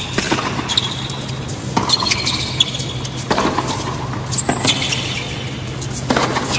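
Tennis rally on a hard court: a ball struck back and forth by rackets, about one hit every second or so, with short high squeaks from the players' shoes on the court surface between hits. A steady low hum runs underneath.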